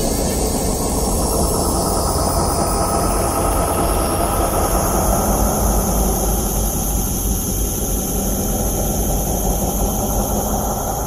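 Dark ambient background drone: a steady low rumble with sustained high tones above it, one of them sliding down in pitch over the first few seconds.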